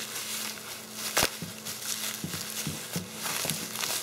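Bubble wrap crinkling and rustling as a wrapped part is unwrapped by hand, with a sharp click about a second in.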